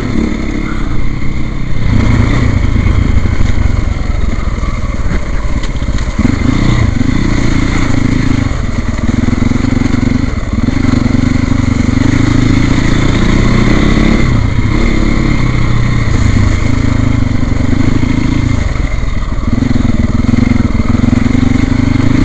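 Trail motorcycle engine running with the throttle opened and closed over and over, its note coming and going every second or two as the bike is worked along muddy ruts.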